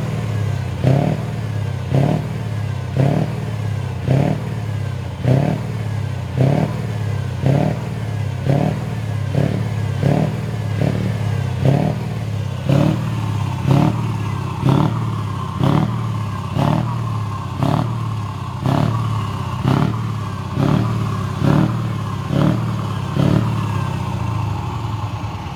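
Scania V8 diesel truck engine running with a short rise in revs about once a second over a steady low drone. A steadier higher tone joins about halfway through.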